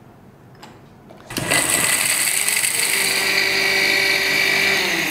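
Electric mixer grinder dry-grinding whole spices (roasted cumin, black salt, cinnamon, cardamom, fennel and black pepper) into a fine powder. The motor starts about a second and a half in and runs steadily, with its pitch rising as it comes up to speed.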